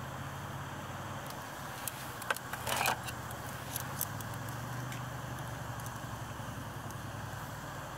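Metal tongs clicking and scraping against scallop shells on a wire-mesh grill: a few sharp clicks, with the loudest short cluster about three seconds in. A steady low hum and hiss run underneath.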